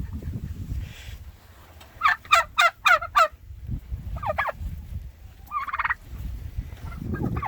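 Domestic turkeys gobbling: a quick run of about five falling gobble notes about two seconds in, then a shorter run and a brief call, over low rumbling noise.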